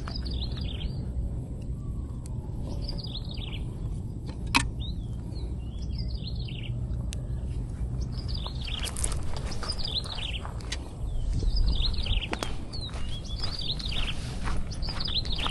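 Birds calling over and over in short, falling chirps, over a steady low rumble of wind on the microphone. One sharp click about four and a half seconds in.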